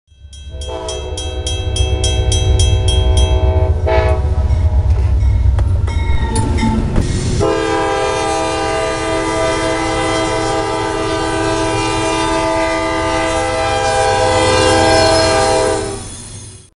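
CSX diesel freight locomotive sounding its horn, a chord of several steady tones, in two long blasts: one of about three seconds near the start and one held for about nine seconds from the middle on, over the heavy low rumble of the train. A rapid ticking, about four a second, runs through the first few seconds, and the sound cuts off suddenly near the end.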